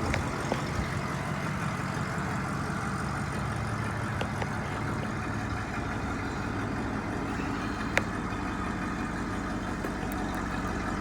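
Ford 260 V8 idling steadily, with a single short click about eight seconds in.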